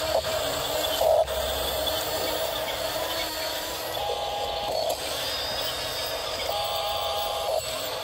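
Radio-controlled toy bulldozer's electric track drive whining steadily as it crawls over loose dirt and pushes it with its blade, with brief louder moments about a second in.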